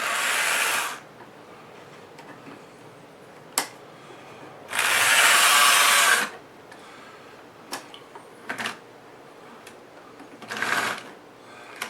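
AHM C-Liner model locomotive with a five-pole motor running on a test track in three short runs, its motor and gears whirring; the middle run is the longest and loudest. A sharp click comes between the first two runs, with a few fainter clicks later.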